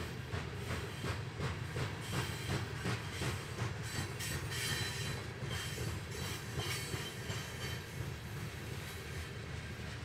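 Open-top freight cars of a long train rolling past, with a steady low rumble and wheels clicking over rail joints. A faint high wheel squeal comes in around the middle.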